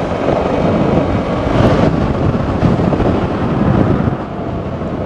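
Wind rushing over the microphone mixed with the engine and road noise of a motor scooter being ridden in traffic; the noise eases slightly about four seconds in.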